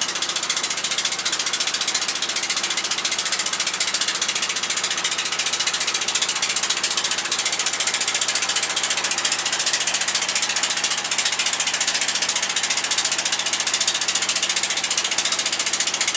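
Open wooden motorboat's engine running steadily under way, giving a fast, even mechanical clatter.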